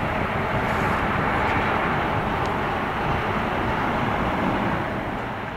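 Twin-engine jet airliner climbing away after takeoff: a steady, distant jet engine noise that eases slightly near the end.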